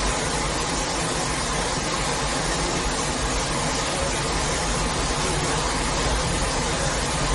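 A steady, even rushing rumble with a deep low rumble underneath, from a theme-park ride's sound-effects track.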